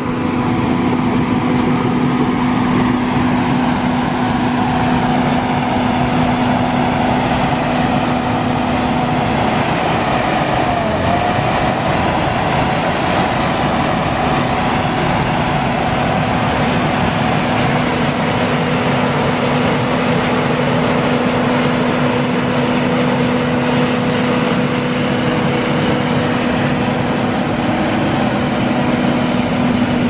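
John Deere 850K crawler dozer's diesel engine running steadily under load as the dozer pushes a blade-load of sandy dirt, a loud drone with a held, unchanging pitch.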